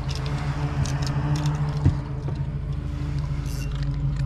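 A steady low motor hum, with scattered light clicks and a single sharp knock about two seconds in.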